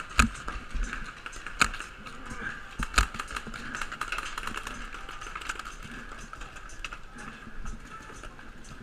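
Paintball markers firing during a game: three sharp loud pops about a second and a half apart in the first three seconds, over a steady patter of fainter, more distant shots.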